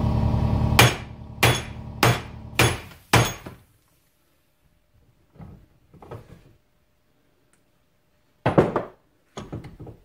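Hammer blows on metal driving an old bearing out of an ATV's wheel hub: five sharp strikes in quick succession about a second in, two faint knocks midway, and two more strikes near the end. A steady low hum stops just as the hammering begins.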